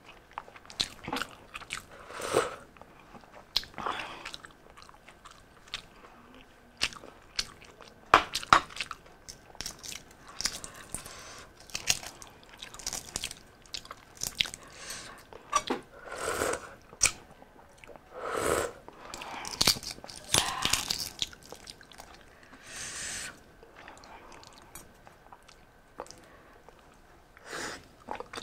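Close-up eating sounds: irregular chewing, biting and smacking on balut (boiled fertilised duck egg) topped with chili, with small clicks and crackles as the eggshell is peeled.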